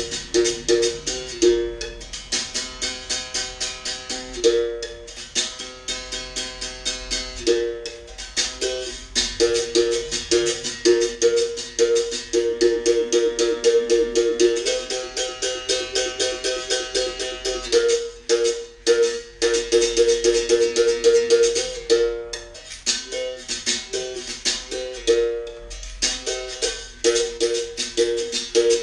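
Berimbau playing a fast capoeira toque. The stick strikes the wire in quick, even strokes that alternate between two notes. The playing breaks off briefly a few times about two-thirds of the way through.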